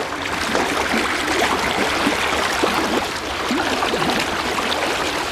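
Fast, high river water rushing steadily, with small splashes and gurgles through it.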